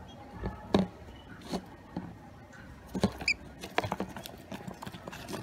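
Scrabbling and irregular knocks of a gloved hand and a wet fledgling against a black plastic tub, thickest about three to four seconds in. A single short, high chirp sounds just after three seconds.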